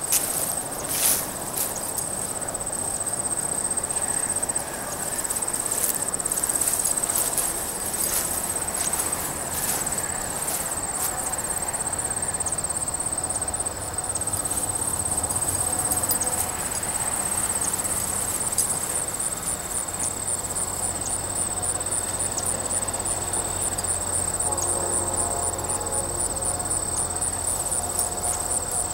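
Crickets and other field insects trilling steadily at a high pitch, with a low rustle underneath.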